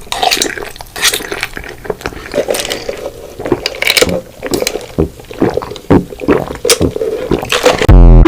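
Close-miked eating sounds: wet chewing and crunching with irregular sharp clicks and smacks. Near the end comes a brief, very loud, distorted burst.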